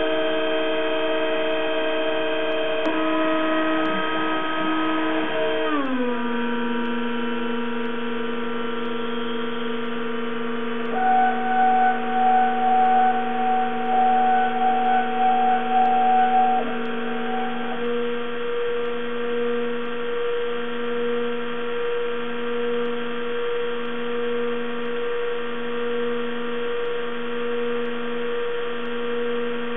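Roland JWX-30 wax milling machine running, its motors giving a steady whine of several tones that drops in pitch about six seconds in. A louder wavering tone joins for several seconds in the middle, then the whine pulses in a slow regular rhythm, about once a second.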